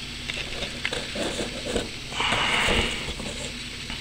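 Packing tape being peeled and torn off a cardboard box: light handling rustles and taps on the cardboard, then a ripping rasp of tape about two seconds in.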